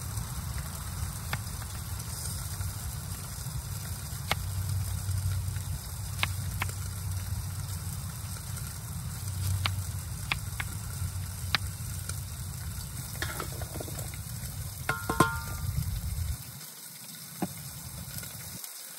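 Knife slicing an onion on a plastic cutting board, with sharp taps every second or so over a steady low rumble that drops away about three seconds before the end. Around fifteen seconds in, a short metallic ring as the onion goes into a small metal pot.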